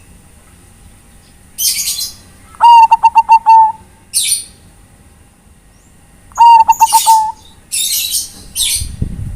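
Zebra dove (perkutut, Bangkok type) cooing in two phrases of quick staccato coos, a few seconds apart. High chirps of small birds come between the phrases, and a low rumble starts near the end.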